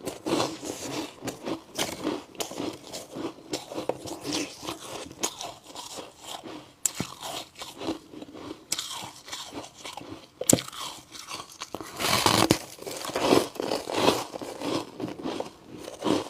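A person chewing and crunching chunks of humidifier ice close to the microphone, with irregular cracks and crackles and a louder run of crunches a little after the middle.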